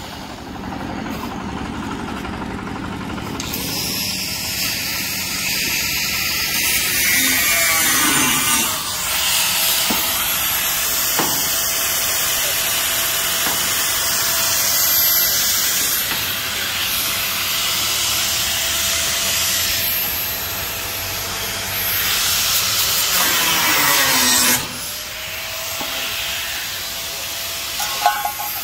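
Handheld electric angle grinder working on the steel tube frame of a metal roof. It spins up about eight seconds in, grinds with a steady whine and hiss, then winds down a few seconds before the end. A short clatter follows just before the end.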